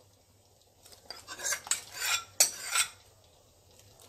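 Steel spoons and a ladle clinking and scraping against a steel cooking pot and a small steel tempering pan as the tempering is scraped into the gasi and stirred. There is an irregular run of clinks from about a second in to nearly three seconds.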